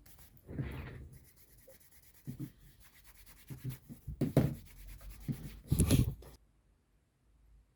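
Hand work on leather: a few separate rubbing strokes of leather being worked by hand, the strongest near the end, then it stops.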